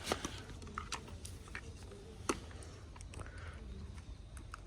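Faint scattered clicks and light handling noises over a low steady hum, with one sharper click a little past two seconds in.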